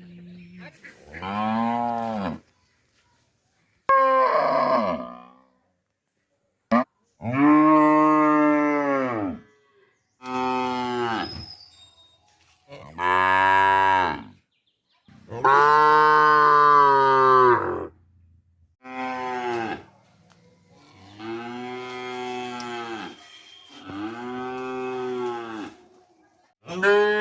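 Village dairy cows mooing in a string of about ten separate calls. Each moo lasts one to three seconds, and its pitch rises and then falls.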